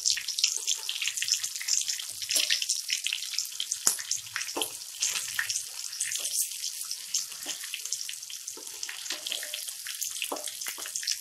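Rohu fish pieces frying in hot mustard oil in a kadhai: a dense, steady crackling sizzle. Scattered sharper clicks and scrapes come through as a metal spatula turns the pieces over.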